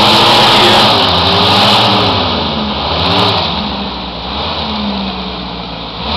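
4x4 SUV engine revving up and down under load as it crawls through deep mud ruts on a slope, its pitch rising and falling several times over a steady rushing noise.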